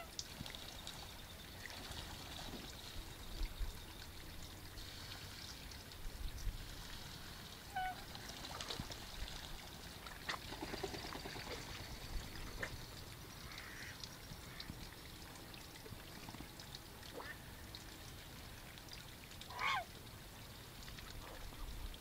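Mallards and domestic geese calling now and then over a steady faint hiss: a short call about a third of the way in, and a louder rising call near the end. Scattered clicks and rustles come from the phone being handled.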